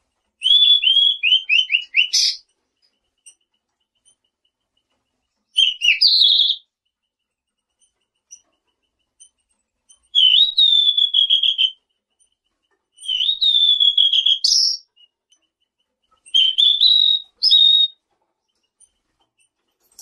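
A selendang biru songbird singing five short whistled phrases a few seconds apart, each a quick run of repeated notes that ends on a higher note.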